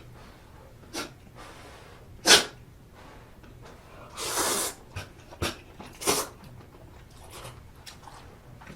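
Close-miked mouth and breath sounds of someone eating spicy sausage stew: a few short, sharp bursts, the loudest about two seconds in, and a half-second rush of air a little after four seconds.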